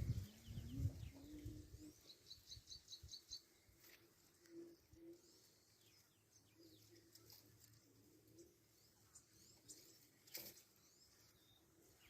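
Faint birdsong: a quick run of high, evenly repeated chirps in the first few seconds, and scattered soft low calls through the rest.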